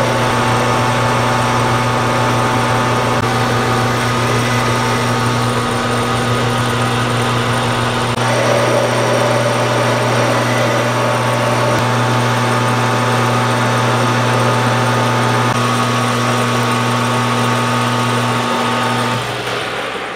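Metal lathe running steadily under cut, its motor and gear train whining while the tool turns down a metal bar at about 30 thousandths depth of cut, throwing stringy chips. Near the end the lathe is switched off and starts to spin down.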